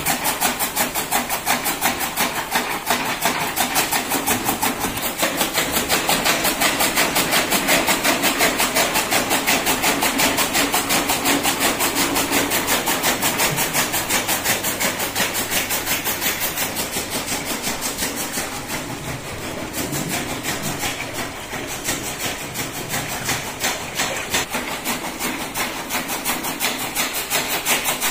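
Motor-driven chaff cutter running and chopping green fodder, with a fast, even pulsing beat that holds steady throughout.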